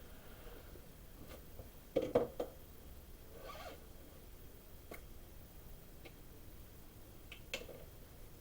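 Scattered faint knocks and clicks over a quiet background, loudest as a quick cluster of three about two seconds in, with a short rustle soon after and a sharper tick near the end.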